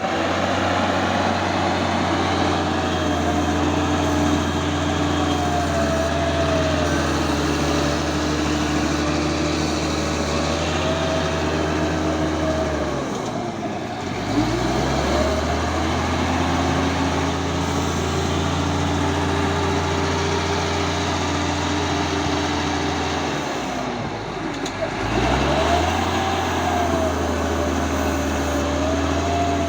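Cat D6G bulldozer's diesel engine running steadily, with a wavering whine above the engine note. Twice, near the middle and again later, the engine note drops briefly and climbs back up.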